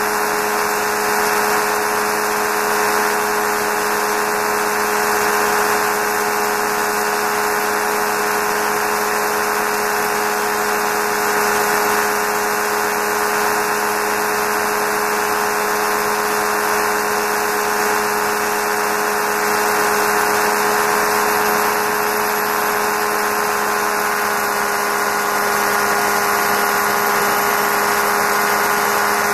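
Quad City Challenger II ultralight in steady cruise: the engine and propeller drone at a constant pitch under heavy wind rush on the microphone.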